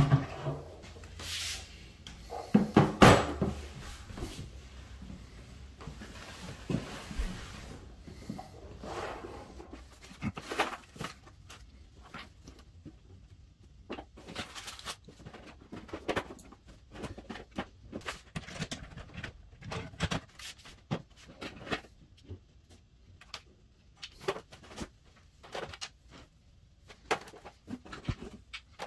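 A run of short knocks and clicks from household objects being handled and set down, with a louder clatter about three seconds in.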